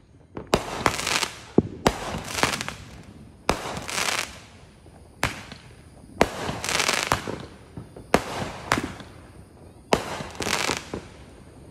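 Fireworks going off in quick succession: about a dozen sharp bangs, many followed by a second or so of hiss.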